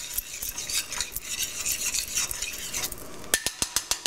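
Metal spoon stirring and scraping inside a small stainless-steel saucepan of melting butter, sriracha and honey on a gas flame, with the sauce sizzling. Near the end come a string of sharp clinks as the spoon strikes the pan.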